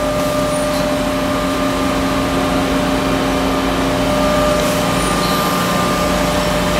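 Hem Saw vertical bandsaw running, a steady machine hum with a constant whine; about four seconds in the low hum drops to a lower pitch.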